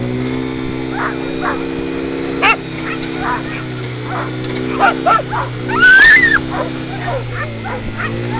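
Lure-coursing machine's motor running at a steady pitch, hauling the lure, while dogs yip and bark over it again and again; the loudest sound is a high, rising-and-falling yelp about six seconds in.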